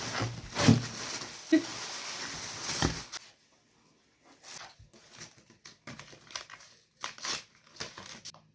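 Packaging being handled and opened: crinkling and tearing, dense for about the first three seconds, then sparse crackles.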